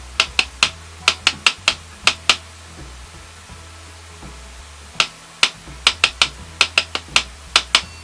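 Sharp knuckle knocks on a small plastic box that carries the noise sensor of a knock-code lock, tapped as a code sequence. A quick run of about nine knocks comes first, then a pause, then a second run of about eleven knocks starting about five seconds in.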